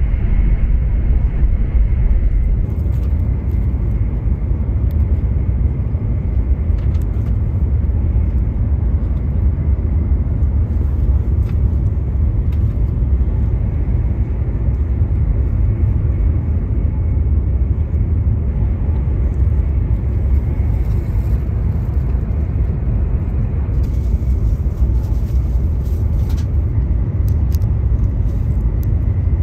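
Steady low rumble of a Joetsu Shinkansen Toki bullet train running, heard inside the passenger cabin, with a few faint light clicks now and then.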